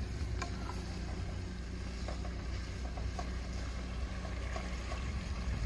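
Wooden spatula stirring a pot of stew on a propane camp stove, with a few light knocks and scrapes against the pot, over a steady low rumble.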